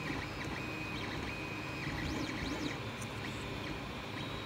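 3D printer running: its stepper motors whine in short moves, each pitch climbing, holding briefly and falling again, over a steady hiss.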